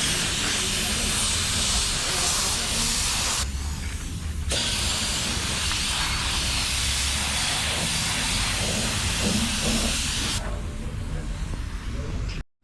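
A steady hiss of a spray or air jet that stops for about a second about three and a half seconds in, then runs on and thins out near the end before cutting off.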